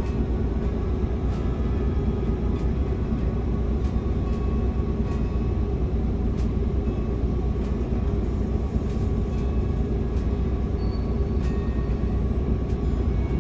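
Inside a city bus under way: a steady low rumble of engine and road noise, with faint small rattles and clicks from the cabin.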